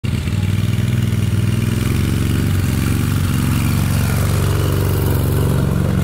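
A small engine running at a steady speed, with a low, rapidly pulsing note.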